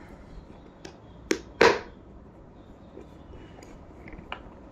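Two sharp plastic snaps about a third of a second apart, a little over a second in: the latches of a hard plastic watch case being unclipped. There is a fainter click just before them and another near the end.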